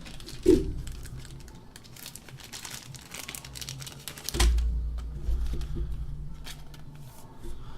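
Trading-card pack wrapper crinkling and tearing as a pack is opened by hand, with cards being handled. Two knocks, about half a second in and in the middle.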